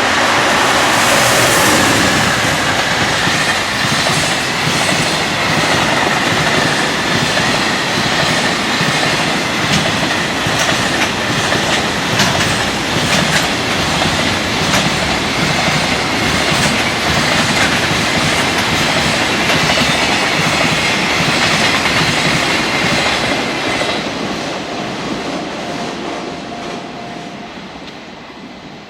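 Freight train passing at speed right beside the microphone, its wagon wheels clattering over a rail joint in a rapid irregular gatan-gatan, with a steady high whine above the rumble. The sound fades over the last few seconds as the end of the train goes by.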